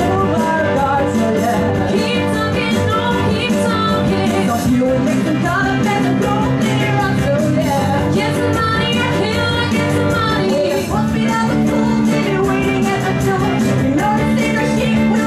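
Live rock band with electric guitars and drums playing a 1950s-style rock-and-roll song, with two women singing lead into microphones.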